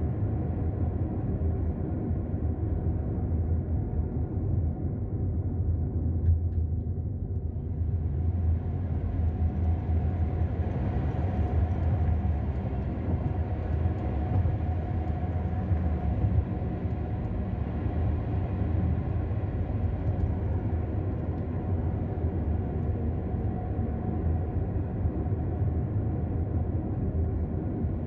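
Steady low engine and road rumble heard inside the cabin of a car driving along a mountain road, with a tyre and wind hiss that grows louder about eight seconds in.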